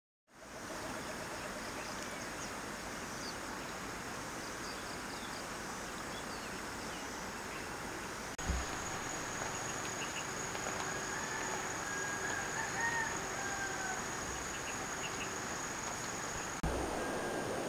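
Outdoor morning ambience: a steady rush of flowing water, with a rooster crowing in the distance about two-thirds of the way through and a steady high-pitched insect drone in the second half. Faint bird chirps come early on, and the ambience shifts abruptly twice as the scene cuts.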